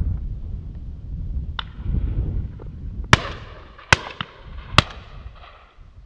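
Shotguns firing at driven game birds. There is a fainter shot about a second and a half in, then three loud shots about a second apart, each followed by an echo.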